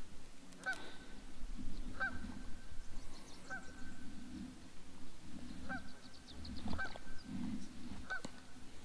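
Geese honking: about six short honks, one every second or two.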